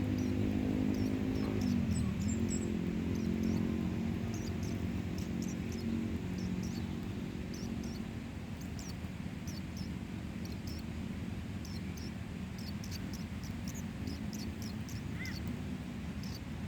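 Nestling birds giving many short, very high peeps. Behind them runs a steady low engine hum that fades about halfway through.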